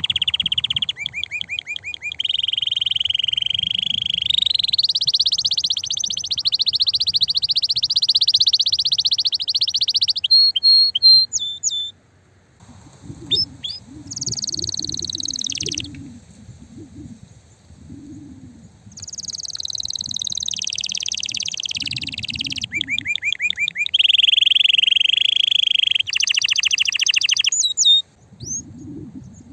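Male canary singing a long, loud song of fast trills and rolls, with rapid chopped phrases and quick whistled slides, and short pauses about twelve seconds in and near the end.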